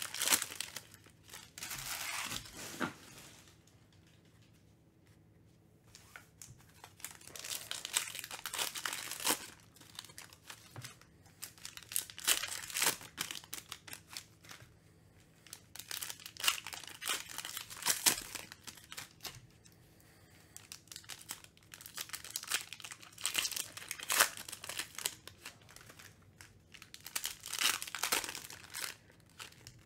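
Foil wrappers of Panini Mosaic basketball card packs being torn open and crinkled by hand, in irregular bursts with short quiet pauses between packs.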